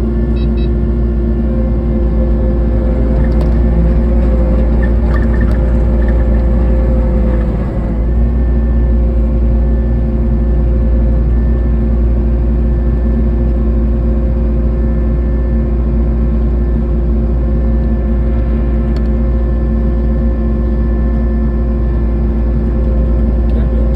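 Kubota SVL90-2 compact track loader's diesel engine running steadily at raised revs, driving a hydraulic snowblower, heard from inside the cab. The level dips briefly just before eight seconds in, then picks back up.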